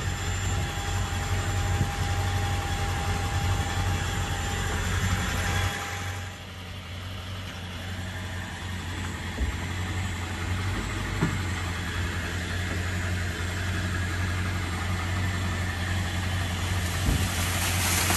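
Truck engine idling steadily, a low even hum. A thin steady whine rides above it and stops about six seconds in.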